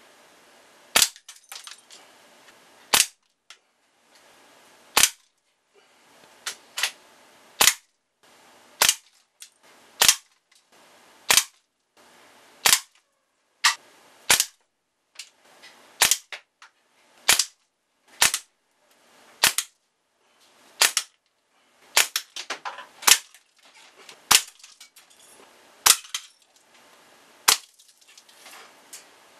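Air gun firing single shots at plastic Halloween toys, about two dozen sharp cracks roughly a second or so apart. Several are followed by smaller knocks and rattles as pellets or BBs strike the toys and chip pieces off them.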